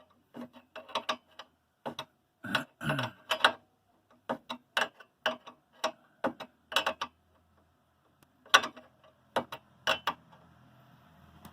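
Ratchet wrench clicking in short runs as a bolt is turned, with brief pauses between strokes.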